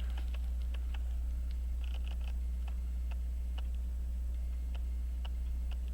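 Faint, irregular small clicks and taps of tweezers and brass watch parts as a pocket-watch movement's plates and pivots are worked into place, over a steady low electrical hum.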